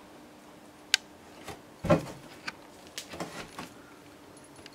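Knocks and taps on wood: a sharp click about a second in, the loudest thump just before two seconds, then a few lighter taps. A faint steady hum runs underneath.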